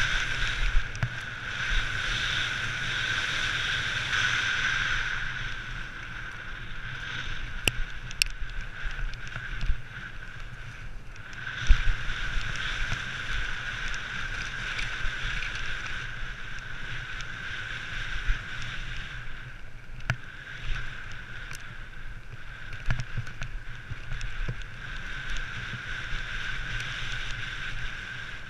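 Mountain bike coasting down a rough gravel and dirt trail: a steady high buzz from the freewheeling rear hub, which drops out briefly twice, over wind rumble on the helmet microphone and scattered knocks from the bike going over bumps.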